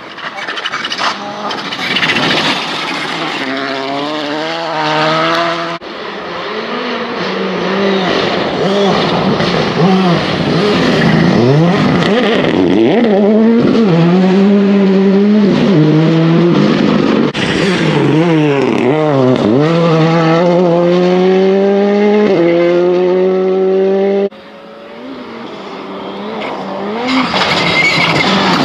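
Rally cars driven hard on a loose gravel stage: engines revving high and dropping back again and again through gear changes, with the hiss and spatter of gravel thrown from the tyres. The sound switches abruptly from one car to the next about 6 s in and again near the end.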